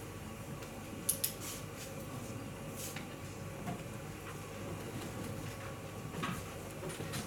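Hall ambience with a steady low room noise and a few scattered sharp clicks: two close together about a second in, another near three seconds, and a fainter one near the end.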